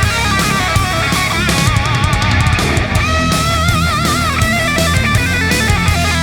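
Loud rock music: electric guitar playing a melodic lead with bent, vibrato notes over bass and a steady drum beat.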